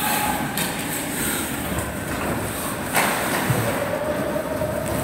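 Ice hockey play at rink level: a steady noisy wash of skate blades scraping on ice and arena noise, with a sharp knock about three seconds in.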